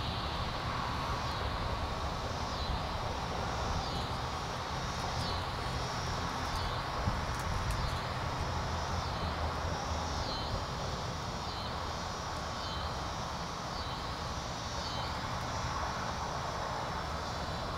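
Steady outdoor background noise with a low rumble, and a high call that repeats about every second or so for most of the stretch.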